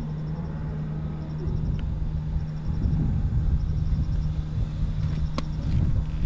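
Vintage Honda Gorilla Z50J's 49 cc single-cylinder four-stroke engine running at idle, with a couple of short louder swells in the second half. The engine runs without abnormal noise.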